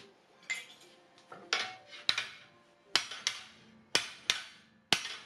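Hammer striking a steel flat bar laid across a welded steel frame clamped in a vise: about nine sharp metallic blows, some in quick pairs, each ringing briefly. The blows are bending the frame to take out the warp that welding pulled into it.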